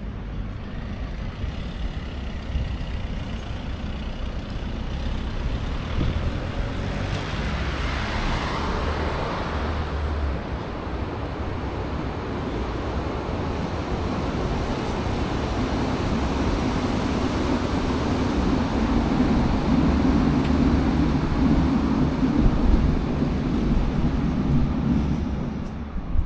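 City street traffic: a vehicle passes about seven to ten seconds in, then a low, steady engine hum builds and stays loud through the second half.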